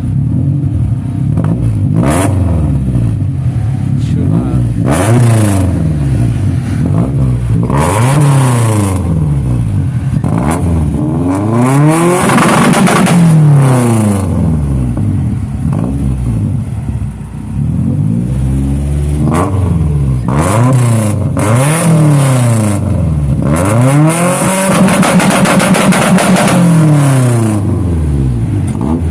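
Modified Honda Civic's B20 engine, running a B16 VTEC head, headers and a 2.5-inch exhaust, being revved up and back down again and again, each rev rising and falling in pitch, with a short drop to idle about two-thirds through.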